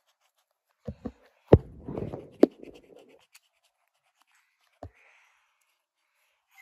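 Black felt-tip marker drawing on paper: a stretch of rubbing strokes with a few sharp taps of the pen, the loudest about a second and a half and two and a half seconds in, then a single tap near the five-second mark.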